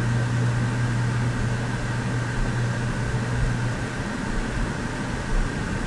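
Steady background hiss with a low hum underneath; the hum drops away a little after halfway.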